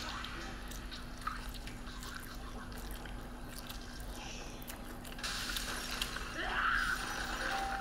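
Instant noodles slurped in off chopsticks, then chewing, with a TV show's audio playing faintly in the background.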